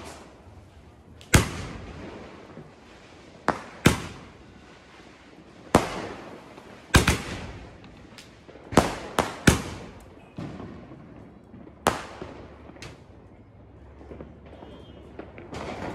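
Aerial fireworks bursting overhead: about a dozen sharp bangs at irregular intervals, some in quick pairs and triples, each trailing off in an echo.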